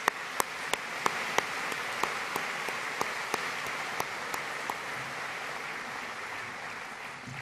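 Audience applauding, the applause swelling early and tapering off near the end. Over it, one person's sharp, close hand claps sound about three times a second until about two-thirds through.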